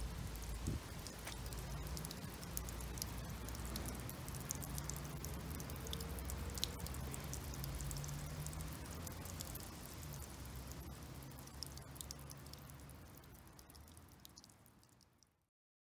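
Lotus-leaf fountain spraying a fine mist of water that patters on leaves and wet paving like rain, with many small drop ticks over a steady hiss and a low rumble underneath. It fades out near the end.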